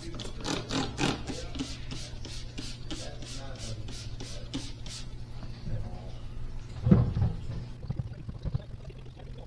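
Quick detailer being sprayed and wiped onto a refinished alloy wheel: a rapid run of short hissing strokes, about four a second, that stops about five seconds in. A single loud knock follows about seven seconds in, over a steady low hum.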